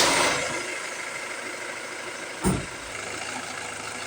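Ford Transit Mk7 2.2 TDCi diesel engine running just after starting, settling from its louder start-up flare to a steady idle; the van has a stalling, rough-idle fault. A single low thump about two and a half seconds in.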